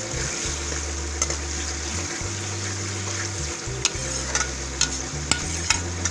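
Sliced onions sizzling in hot oil in a pot, stirred with a spatula that clicks and scrapes against the pan several times.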